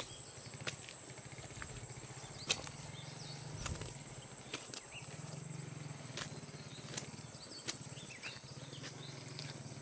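Footsteps on a wet, muddy dirt track, a step roughly every second, over a steady high-pitched whine and a low hum.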